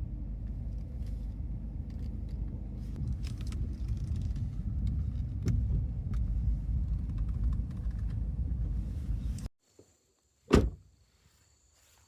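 Steady low rumble of a car on the move, with scattered light clicks, that cuts off abruptly about three quarters of the way in. About a second later comes a single loud thump.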